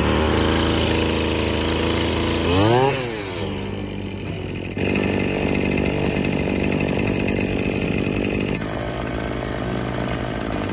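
Small two-stroke gas string trimmer engine running, blipped up and back down in pitch once about three seconds in, then running on.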